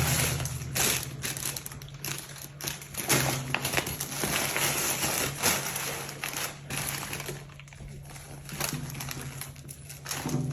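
Packaging crinkling and rustling in irregular bursts as it is handled and unwrapped. A loud ringing tone dies away at the very start.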